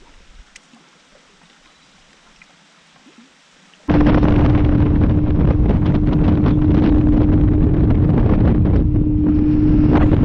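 Faint background for the first few seconds, then about four seconds in a loud rush of wind on the microphone starts suddenly, with a steady engine drone under it: a bass boat's outboard motor running at speed.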